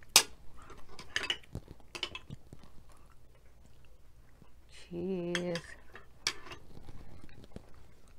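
Metal spoon clinking and scraping in a small cup of cheese dip, with a few sharp clicks, the loudest just after the start. A short hummed voice about five seconds in.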